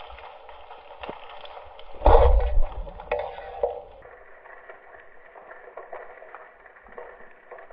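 Underwater ambience with a steady crackle and scattered ticks. About two seconds in comes one loud low thump with a half-second rush of noise, followed by a few smaller knocks.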